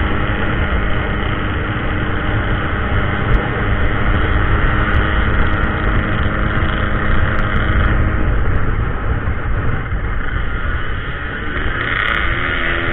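Motorcycle engine running at cruising speed under heavy wind rumble on the microphone. Its pitch drops off around eight seconds in and rises again near the end as it accelerates.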